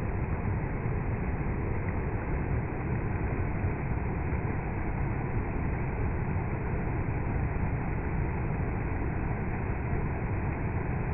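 Steady rushing of flowing water, an even noise that keeps the same level throughout.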